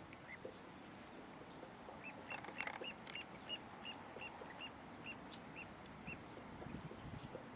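Little ringed plover calling: a run of about a dozen short, high notes evenly spaced a few per second, easing off slightly toward the end, with a few faint clicks among the first notes.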